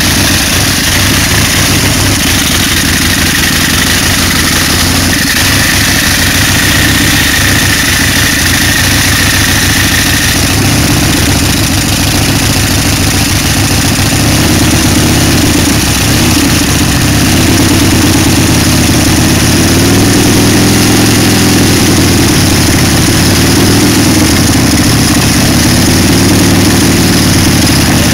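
The V-twin engine of a Harley-Davidson chopper with an S&S stroker motor, running loudly at idle while it warms up. In the second half it is blipped a few times, its pitch rising and falling.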